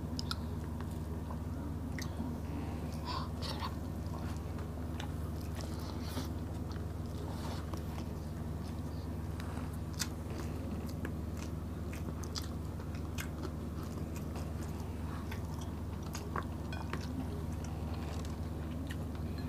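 Close-miked eating sounds of people chewing smoked fish and rice eaten by hand: wet chewing, lip smacks and scattered short clicks, with one sharper click about ten seconds in. A steady low hum runs underneath.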